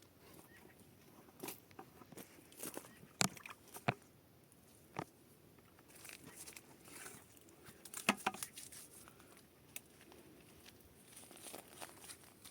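Irregular crinkling and rustling with scattered sharp clicks and snaps. The loudest snaps come a little over three seconds in and about eight seconds in.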